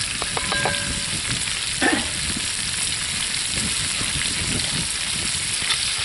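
Chuck roast, onions and olives sizzling in hot oil in a cast-iron Dutch oven over a wood fire, a steady frying hiss. A few light clinks ring out near the start, and there is a sharp knock about two seconds in.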